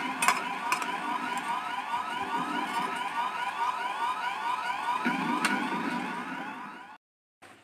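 Siren-like electronic sound: rapid, overlapping rising whoops over a steady tone, fading out near the end and cutting off to silence.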